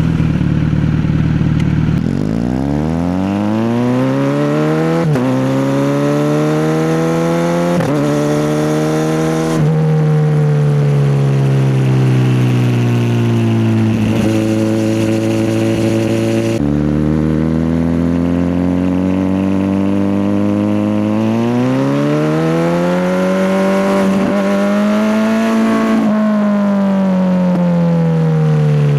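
Kawasaki Z900 inline-four motorcycle engine under way: it revs up through the gears with brief dips at each shift, eases off and slows, then accelerates again and falls back near the end.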